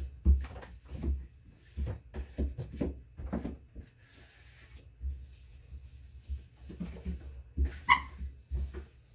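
Irregular knocks and bumps of hands and a cloth working inside a refrigerator during cleaning, with one brief high squeak about eight seconds in.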